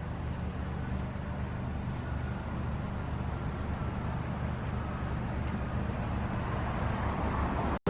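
Steady low rumble of a moving vehicle, cutting off abruptly near the end.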